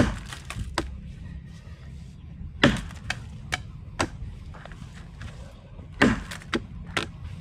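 Felling axe chopping into a log: three heavy strikes about three seconds apart, with lighter knocks between.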